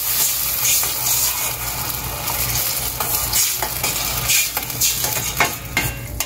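Metal spoon stirring a thin sauce in a stainless steel pan, scraping and clicking against the pan several times in the second half, over the steady hiss of the sauce coming to the boil.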